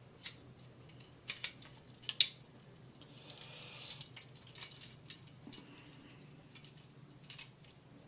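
Small clicks and rustling from handling the fixture's wires and plastic tube holders, with a sharp click about two seconds in and a short rustle a second later.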